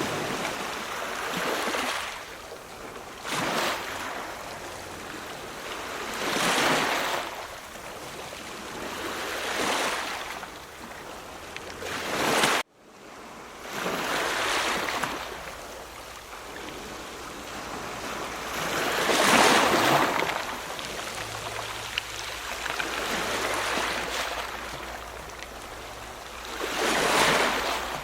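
Ocean waves breaking and washing in, one surge of surf every few seconds over a steady rush of water. The sound cuts out for a split second just under halfway through.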